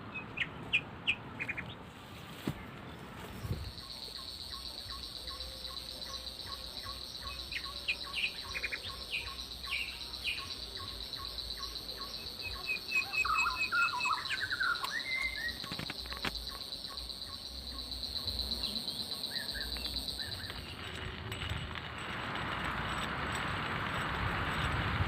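Forest ambience: birds chirping and calling in short series, over a steady high-pitched insect drone that stops near the end, when a rushing noise builds.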